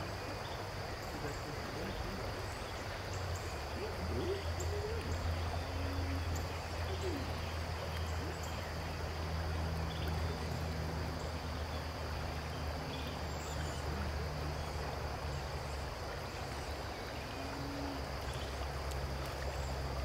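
River water flowing and rippling over a shallow gravel riffle, a steady rushing. A low steady hum comes up about three seconds in and holds, with a faint, steady high insect drone above it.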